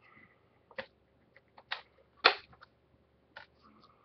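Discs being popped off the hubs of a plastic Blu-ray case: several sharp plastic clicks, the loudest a little past two seconds in.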